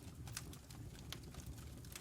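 Wood fire crackling in a fireplace: a few sharp, irregular pops over a low, steady rumble of the flames.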